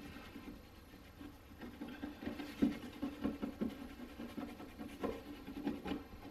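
A cloth scrubbing grease off a wooden kitchen cabinet: short, irregular rubbing and scratching strokes, coming thicker after the first couple of seconds.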